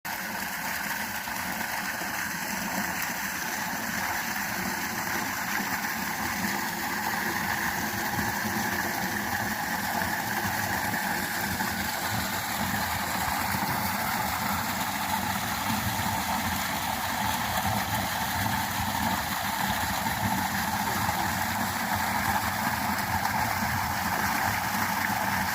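Flowing water rushing steadily, a continuous even noise that holds at the same level throughout.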